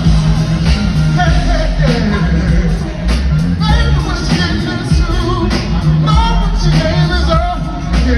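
Music: a voice singing a melody over a heavy bass line.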